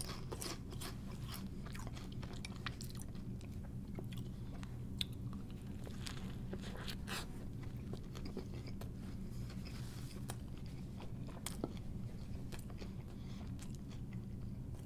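Close-miked chewing of salt-and-vinegar potato chips and chicken burger: soft crunches and mouth clicks scattered throughout, over a low steady hum.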